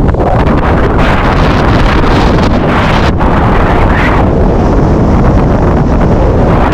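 Loud, steady wind buffeting the camera's microphone: a continuous rumble with hiss over it.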